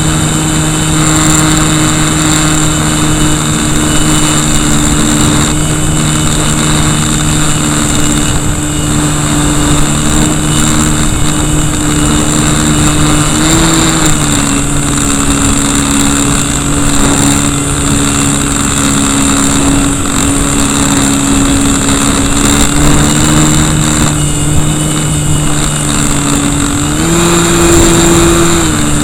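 RC Cessna's KV1100 brushless electric motor and propeller running, heard close up from a camera mounted beside the motor, with a steady hum and a high whine under dense wind and prop-wash noise. The pitch steps up briefly about 13 seconds in and again for about two seconds near the end as the throttle is raised.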